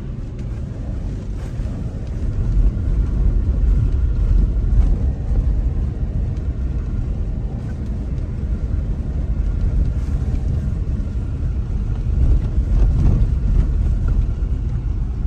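Road noise and engine rumble of a moving car, a steady low rumble that swells a few seconds in and again near the end.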